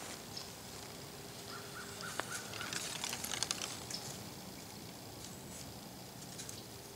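White-tailed deer stepping and nosing through dry leaf litter: soft rustling, with a burst of crackling and crunching leaves in the middle.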